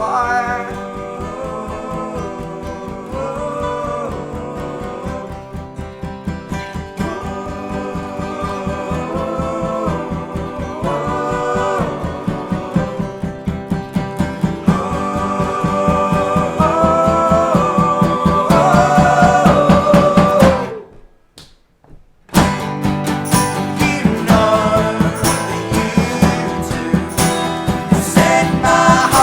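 Acoustic band playing, with strummed acoustic guitar under a held melody line. The music stops dead about two-thirds through, then comes back in hard about a second and a half later.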